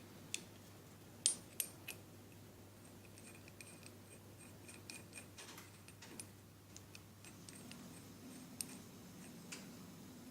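Light metallic clinks and taps of small steel parts and hand tools being handled, with the louder knocks about a second in and a run of small ringing ticks in the middle, over a faint low hum.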